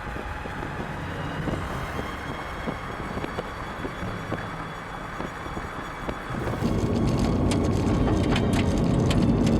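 Noise inside a moving car: steady road and wind noise with scattered clicks. It gets louder about six and a half seconds in, with many rapid sharp ticks.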